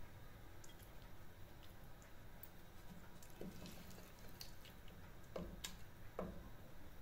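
Potato and cauliflower curry being spooned out of a cooking pot onto a glass plate: faint wet plops and a few soft knocks, most of them in the second half.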